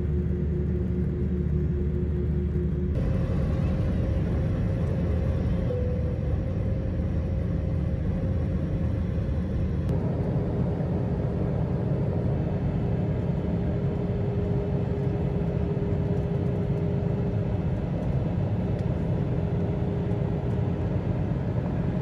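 Steady low rumble of an airliner's jet engines and rushing air heard inside the cabin, with a faint steady hum over it. The sound shifts suddenly about 3 seconds in and again about 10 seconds in, where the footage is cut together.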